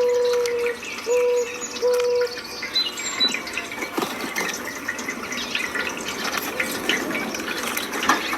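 Birdsong over running water: three short, low, pure whistled notes in the first two seconds or so, then many small high chirps and ticks over a steady rush of water.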